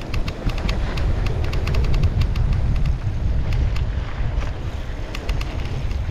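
Wind buffeting the microphone of a mountain biker riding fast down dirt singletrack, a steady low rumble, with irregular clicks and rattles from the bike as it rolls over the rough trail, thickest near the start and again near the end.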